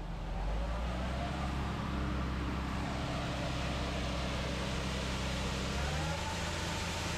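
Heavy farm tractor engine running steadily under load, a low drone with a faint whine. About six seconds in, the engine note shifts up and a thin whine rises slightly and then holds.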